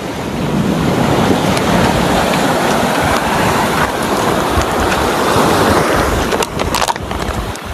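Steady rush of sea water, with wind buffeting the microphone and a few sharp clicks near the end.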